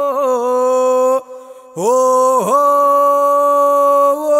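A solo male voice chanting a Sinhala folk devotional verse without accompaniment, holding long steady notes ornamented with quick wavering turns. About a second in, the voice breaks off for a breath, then comes back with a swooping dip in pitch into another long held note.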